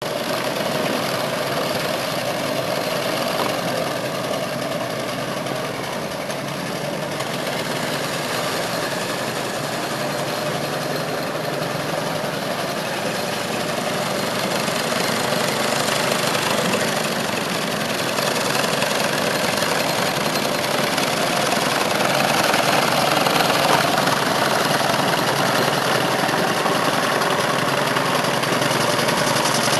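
3-inch scale Aveling & Porter live steam traction engine model running steadily, with its steam exhaust and mechanical clatter, growing slightly louder in the last third.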